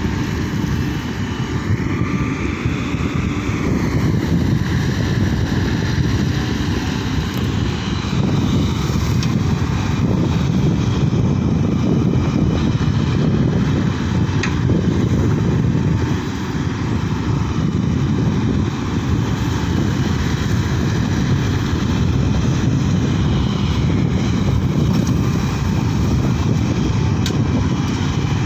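Sany SY140 excavator's diesel engine running steadily under load as it digs and swings, a continuous low rumble.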